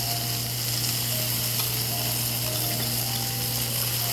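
Beef sizzling on a tabletop barbecue grill: a steady hiss over a constant low hum.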